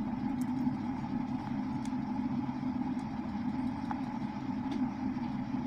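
Steady mechanical hum in the background, unchanging throughout, with a few faint ticks.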